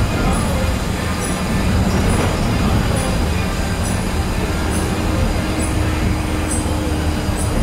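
Bus in motion heard from inside the cabin: steady engine and tyre rumble on a wet road, with a faint high tick about once a second.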